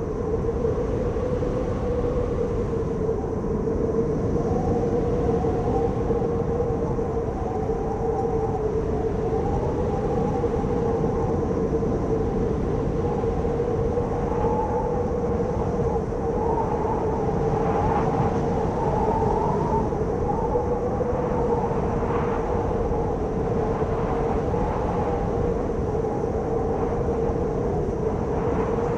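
Strong wind blowing steadily with a wavering, whistling howl.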